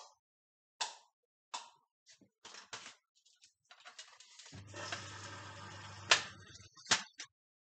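Hotpoint front-loading washing machine as its wash cycle begins: a string of sharp mechanical clicks, then about halfway through a steady mains hum with a rush of noise for about two seconds. It is cut off by a loud click, followed by one more.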